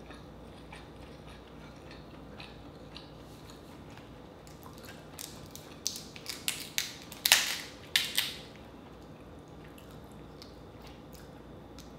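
Dungeness crab shell being cracked and pulled apart by hand: a quick run of sharp cracks and snaps in the middle, the loudest about halfway through, with faint clicks of picking at the shell before and after.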